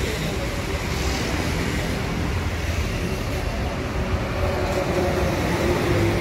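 Large coach bus's diesel engine idling, a steady low rumble, with passing road traffic behind it.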